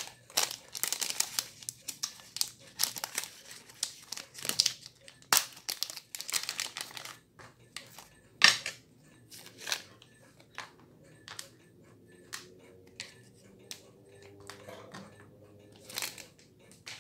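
Thin plastic packaging crinkling and rustling as it is handled and opened, dense for the first several seconds. Then comes one sharp click about eight and a half seconds in, followed by scattered lighter taps and clicks on a work mat.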